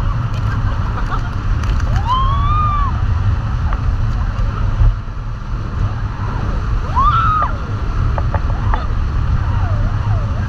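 Steady rush of wind and churning water on a banana boat towed at speed. Over it come two rising-and-falling whoops from the riders, about two seconds in and again about seven seconds in.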